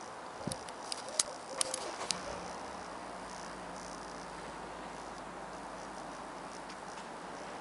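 Steady outdoor background noise with a handful of short, sharp clicks in the first two seconds, then a faint low hum.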